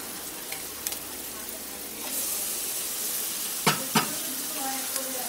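Onion, garlic and green chillies sizzling in hot mustard oil in a kadai. About two seconds in the sizzle gets louder as the wet pulp of ripe pointed gourd goes into the oil, and two sharp knocks come a little later.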